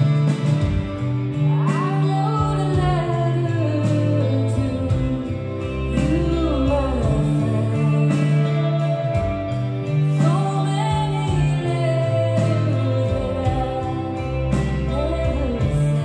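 Live rock band playing, a woman singing lead over electric bass, drums and cymbals, keyboards and electric guitar.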